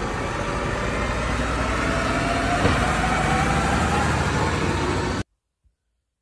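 A large vehicle engine running steadily with a deep rumble, its pitch rising slowly. It cuts off abruptly about five seconds in.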